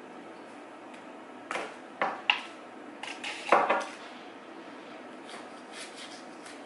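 A few short clinks and knocks of a kitchen knife and dishes while a jalapeño is cut open and deseeded by hand, the loudest about three and a half seconds in.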